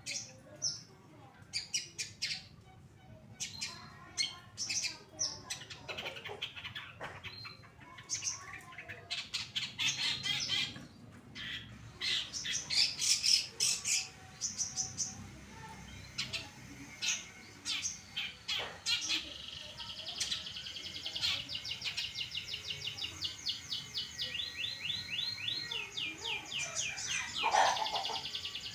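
Long-tailed shrike (cendet) singing loudly: sharp, high chirps and short calls at first, then fast runs of rapidly repeated notes.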